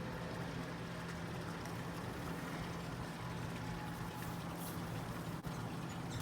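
Steady low mechanical hum over an even background noise, unchanging throughout.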